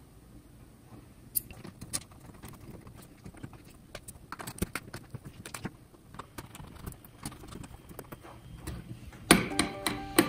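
Scattered light clicks and taps of small hand tools on a ceramic tube socket's metal contacts and a circuit board, with a cluster of louder clacks near the end.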